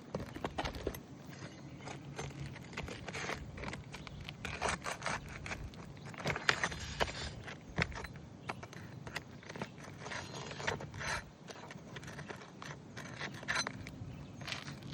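Hand tools working on asphalt roof shingles: irregular scraping and clicking as shingles are pried loose and worked free, with one sharper knock about six and a half seconds in.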